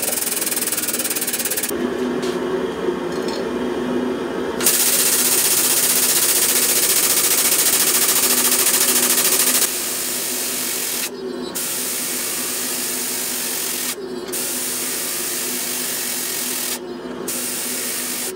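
Hydraulic forging press running as it squeezes a hot billet: a steady hiss with a hum underneath. Near the start the hiss drops and the hum strengthens for a few seconds, and it does so briefly three more times later on.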